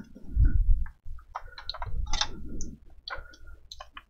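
Plastic UPS case cover being handled and shifted by gloved hands. There is a low bump about half a second in, then scattered light clicks and short rattles of plastic.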